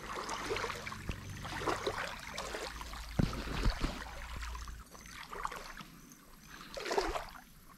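Water sloshing at the shoreline, with small knocks and rustles from handling a small, deep-hooked fish as it is unhooked and let back into the water; a louder swishing splash comes about seven seconds in.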